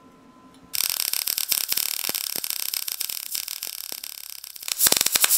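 Short-circuit MIG welding arc on steel, struck about a second in, hissing with fast irregular popping and crackle, louder near the end. The wire feed speed is far too low for the voltage (140 in/min at 19 V, about 69 A), so the arc barely stays lit and throws a lot of spatter.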